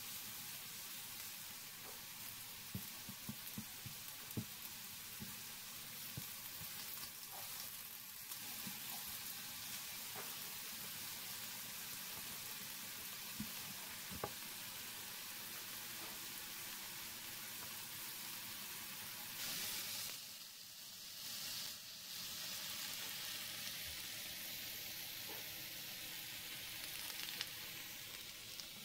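Beef skirt steak, chopped carne asada and onions sizzling steadily on a hot countertop griddle, with a few light clicks of tongs. The sizzle surges louder twice, about two-thirds of the way through.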